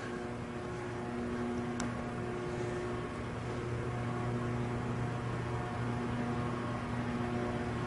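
Steady low hum with a faint hiss behind it. A single faint tick comes a little under two seconds in.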